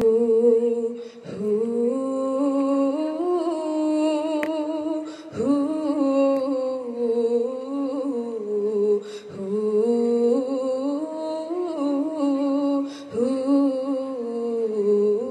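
Female nasyid group singing a cappella, holding wordless sustained notes in two-part harmony that slide slowly in pitch. The notes come in long phrases about four seconds each, with a short break for breath between them.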